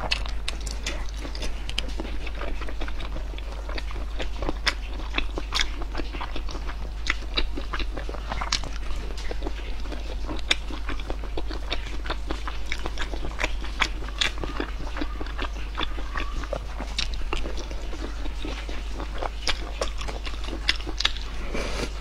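Close-miked eating sounds: biting and chewing braised chicken pieces in sauce, with frequent irregular sharp crunches and wet mouth clicks, over a steady low hum.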